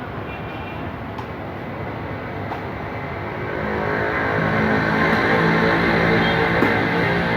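Freshly overhauled Bajaj CT100 single-cylinder four-stroke motorcycle engine running, revving up and getting louder about halfway through.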